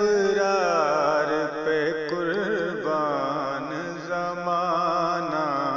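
A male voice singing a naat (Urdu devotional poem), drawing out long ornamented vowels with wavering pitch over a steady low drone.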